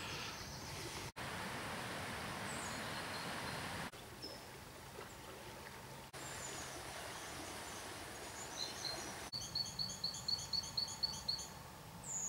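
Woodland ambience of a faint steady rustle with a few short high bird chirps; past the middle a small songbird sings a run of quick repeated two-pitched notes, about four a second, for a few seconds.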